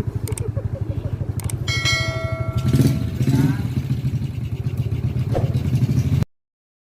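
A vehicle engine running with a fast, steady throb. A steady horn-like tone sounds for about a second, about two seconds in. All sound cuts off about six seconds in.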